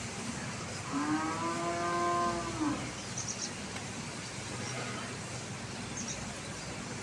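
A cow mooing once: a single drawn-out call of about a second and a half, starting about a second in, its pitch lifting slightly at the start and dropping away at the end.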